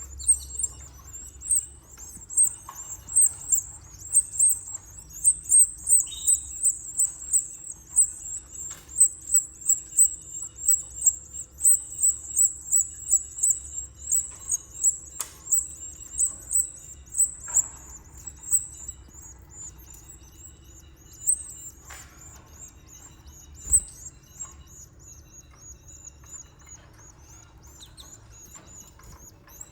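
A canary chirping: short, high chirps repeated about twice a second, which thin out and grow faint about two-thirds of the way through, with a few sharp taps among them.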